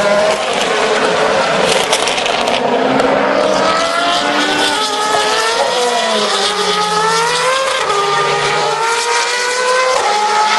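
Several DTM touring cars' 4.0-litre V8 engines accelerating past on track, their engine notes overlapping and rising in pitch through the gears.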